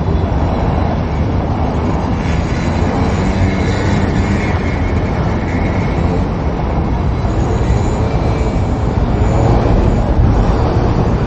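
Outdoor city ambience: a steady low rumble, with faint voices near the end.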